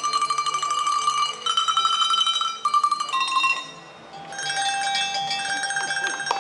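Small table-top handbells shaken one after another to play a short tune: a run of ringing notes, each trembling, changing pitch every half second or so. After a brief lull about four seconds in, steadier held ringing tones follow.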